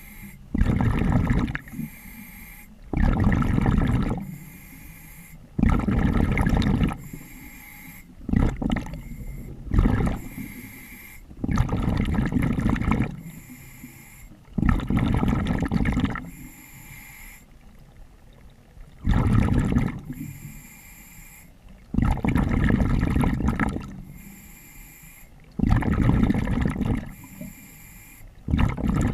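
A diver breathing underwater through a regulator: repeated bursts of gurgling exhaust bubbles alternating with breaths drawn through the demand valve, each about a second long and coming every two to three seconds.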